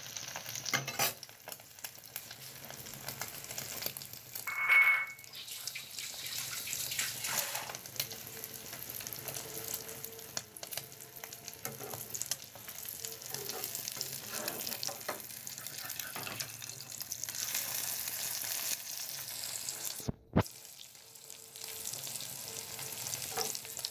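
Egg omelet frying in hot oil in a pan on a gas burner: steady sizzling and crackling, with a metal spatula scraping and lifting at the pan. A short, louder high-pitched sound about five seconds in, and the sound cuts out for a moment near the end.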